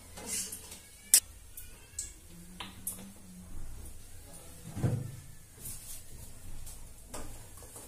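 Scattered clicks and knocks of kitchen utensils and containers being handled at a gas stove. The sharpest comes a little over a second in, and a duller thump comes about five seconds in.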